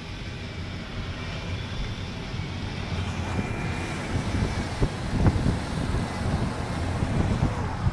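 Steady low rumble of a car driving in slow, busy traffic, heard from inside the cabin, with a few short low thumps a little past the middle.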